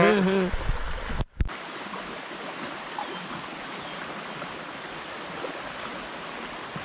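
Fast, shallow river current running steadily over stones: an even rushing sound. A man's drawn-out voice trails off at the very start, and the sound drops out briefly a little over a second in.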